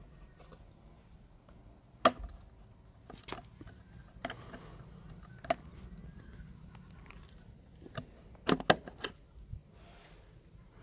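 Hand tools and motorcycle parts being handled during a dirt bike strip-down: a sharp knock about two seconds in, a few scattered clicks and a brief rustle, then a quick cluster of knocks around eight to nine seconds in.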